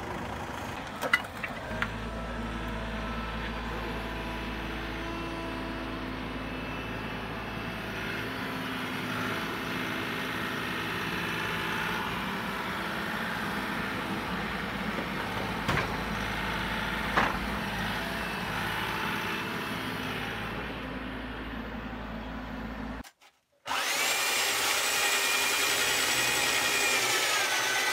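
Diesel engines of a Bobcat compact excavator and a dump truck running steadily while the excavator loads spoil, with a few sharp clanks. After a cut, an electric drill whines steadily as it bores a drain hole through a thick stone wall, its pitch dipping slightly near the end as it loads.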